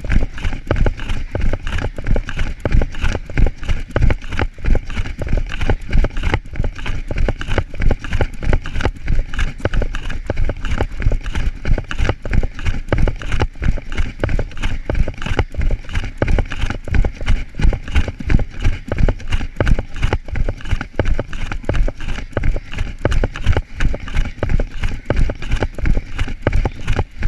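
A runner's rapid footfalls and the camera jolting in his swinging hand as he sprints on grass: rhythmic thumps about three times a second.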